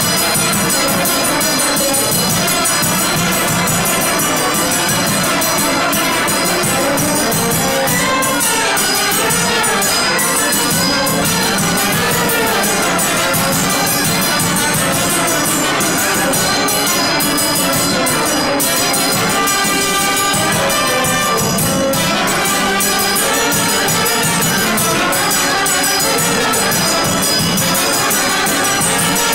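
Traditional Romanian brass band (fanfară) playing folk dance music, with brass instruments carrying the tune without a break.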